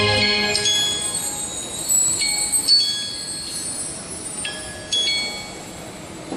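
High bell-like chime tones struck singly, about five at uneven intervals, each ringing briefly. A held music chord dies away at the start.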